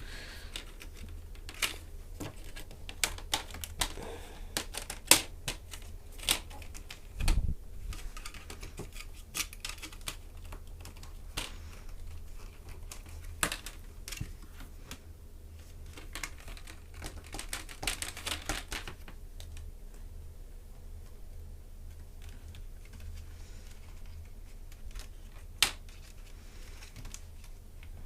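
Plastic latches of a ThinkPad E450's LCD bezel clicking and snapping as the bezel is pried off with a credit card: irregular sharp clicks, bunched together about two-thirds of the way through, with a dull knock about seven seconds in, over a faint low hum.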